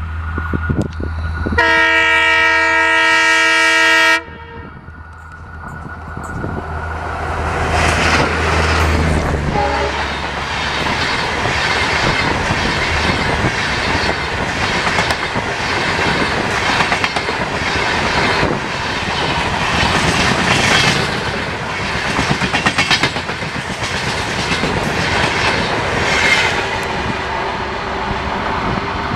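An Indian Railways diesel locomotive sounds one long horn blast of about two and a half seconds over its deep engine rumble as it approaches. Then its LHB AC coaches run past close by with a steady rush of wheels on rail and a regular clickety-clack over the rail joints.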